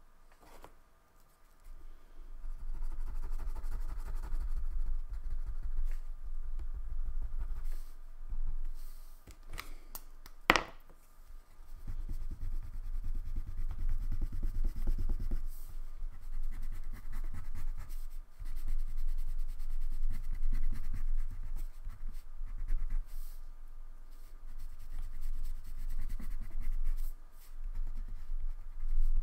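Wax crayon scrubbed back and forth on paper, colouring in spells of rubbing strokes. There is a single sharp click about ten seconds in.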